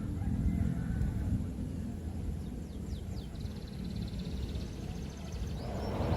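Low steady vehicle rumble with small birds chirping and trilling in the middle; a louder rushing noise builds near the end.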